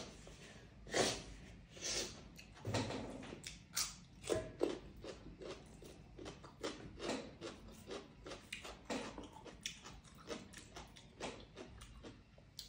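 Close-miked eating sounds: chewing and wet lip-smacking, an irregular run of short smacks a few times a second, louder in the first few seconds and softer after that.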